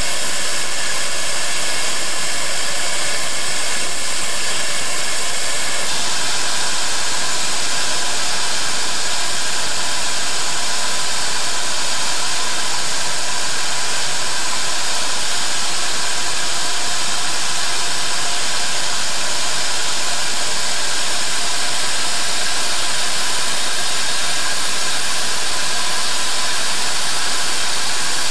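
Steady hiss of steam venting from ex-C&NW #1385, a 4-6-0 steam locomotive standing in the yard, its character shifting slightly about six seconds in.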